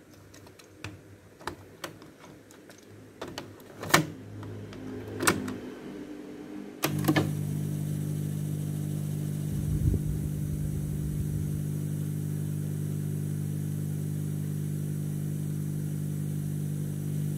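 A cassette being loaded into a Panasonic RX-DT610 boombox's tape deck: a run of small plastic clicks and clacks, with two louder clacks about four and five seconds in. About seven seconds in the deck starts, and a steady low hum with tape hiss runs as the blank lead-in of the tape plays.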